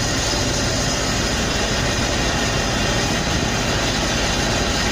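Engine running steadily, with an even hiss over it.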